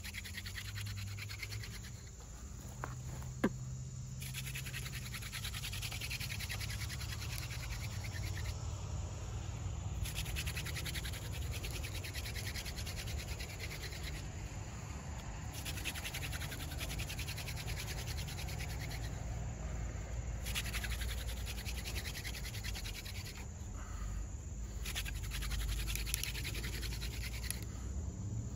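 Hand drill friction fire: a horseweed spindle twirled fast between the palms, its tip grinding into a water oak fireboard with a steady dry rasping and rubbing. The rasping breaks off briefly every five seconds or so as the hands move back to the top of the spindle, and there is one sharp click about three seconds in.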